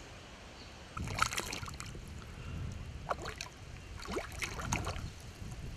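Shallow lake water splashing and sloshing around hands as a small common carp is released at the bank and swims off, with small irregular splashes starting about a second in.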